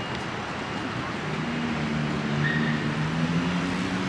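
Road traffic noise, with a nearby motor vehicle's engine humming steadily from about a second in.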